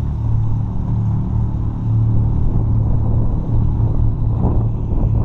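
ATV engine idling steadily, a low even hum.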